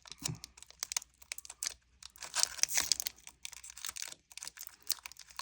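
Foil Pokémon card booster pack wrapper crinkling and tearing as it is opened, in irregular crackly bursts that are densest in the middle.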